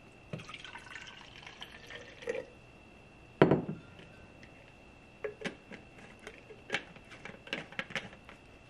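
Water poured from a pitcher into a Nalgene wide-mouth bottle for about two seconds, then a loud knock as the pitcher is set down on the counter. Light clicks and taps follow as the bottle's plastic screw cap is fitted.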